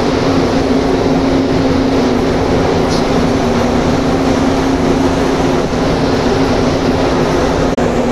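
Spray booth ventilation fans running: a steady rushing air noise with a constant low hum.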